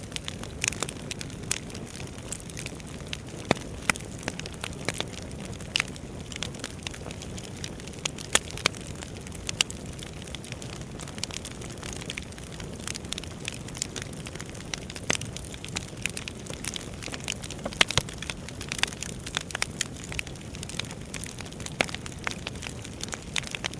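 Wood fire crackling: irregular sharp pops and snaps, a few louder than the rest, over a steady low rush of burning logs.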